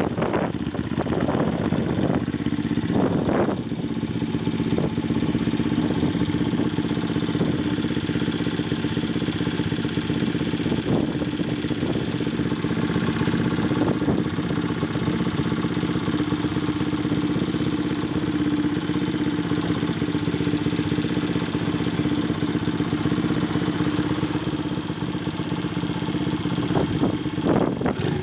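Honda Monkey minibike's single-cylinder four-stroke engine idling steadily, with a couple of brief revs near the start and again near the end.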